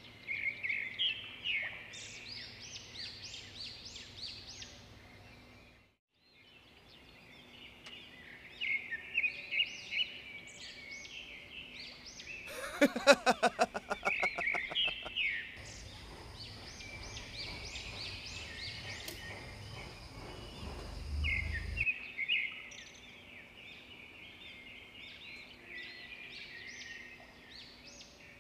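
Birds chirping with many short, repeated calls over a steady outdoor hiss. About halfway through comes a quick run of clicks lasting a couple of seconds.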